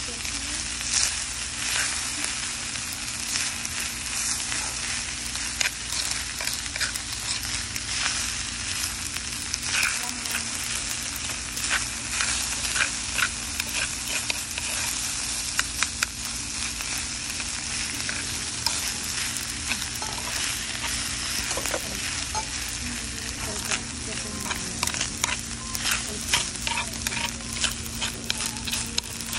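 Hot stone bibimbap sizzling in its heated stone bowl while a metal spoon stirs and scrapes the rice, with many short clicks of the spoon against the stone. The sizzle is the rice crisping into scorched rice against the hot bowl.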